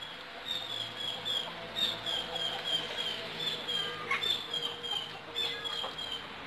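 A steady run of short, high, falling chirps, about four a second in short runs, from a small creature in the undergrowth.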